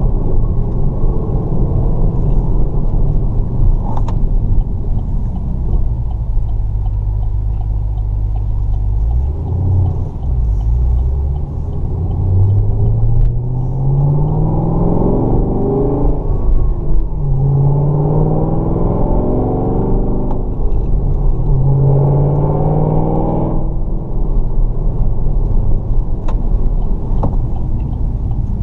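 2012 Chevrolet Camaro ZL1's supercharged LSA V8, heard from inside the cabin. It cruises steadily, then accelerates hard through three gears, the pitch rising in each with two upshifts between them, and settles back to a steady cruise near the end.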